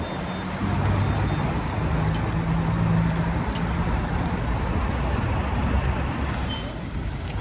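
Street traffic noise, with a motor vehicle's low engine hum close by that fades out about halfway through.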